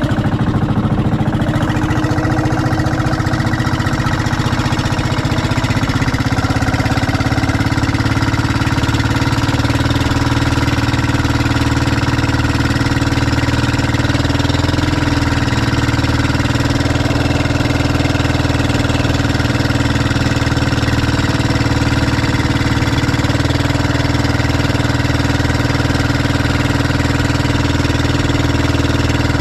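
Small motorized bangka's engine running steadily under way; its revs climb a little in the first few seconds, then hold.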